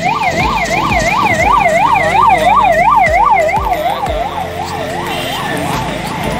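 Vehicle siren in a fast yelp, its pitch sweeping up and down about three times a second over traffic noise. It is loudest in the first few seconds and fades after about four seconds.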